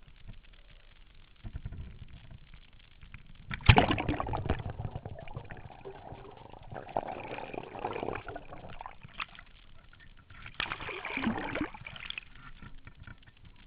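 River water splashing and gurgling around a camera at water level that goes under the surface and comes back up. A sharp knock and splash come about four seconds in, then sloshing and gurgling. A second loud burst of splashing comes about eleven seconds in.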